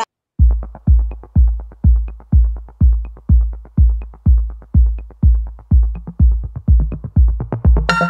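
Electronic dance music: a steady deep kick drum beat about twice a second with light ticks between, starting after a brief moment of silence.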